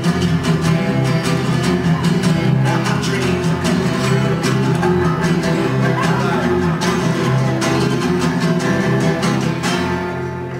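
Live band of acoustic guitars strumming a punk song's closing bars, with the music dropping in level near the end.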